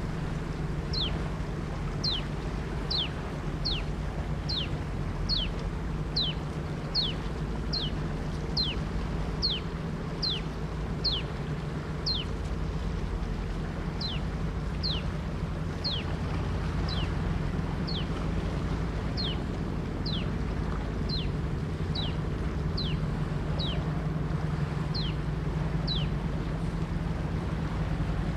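Steady low drone of a sand-carrying river boat's engine. Over it, short high chirps that slide downward repeat about twice a second, pausing briefly about halfway through.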